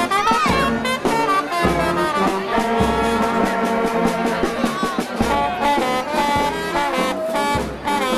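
Small brass band playing a tune, with trombones and trumpet on the melody over the tuba's bass notes.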